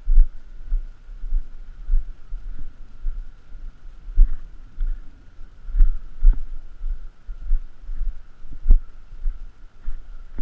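A hiker's footsteps on a trail, carried through a head-mounted action camera as dull low thuds about twice a second, with a few sharper knocks. A faint steady high tone sits behind them.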